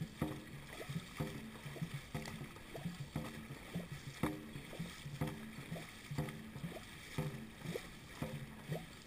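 Dragon boat crew paddling in time: paddles striking and pulling through the water about once a second over a steady rush of water along the hull, with short rhythmic voice sounds from the crew keeping the beat.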